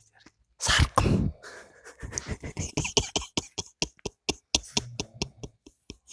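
A man snoring in deep sleep: one loud rasping snore about a second in, then a long run of quick, irregular clicks and pops, like vocal beatboxing.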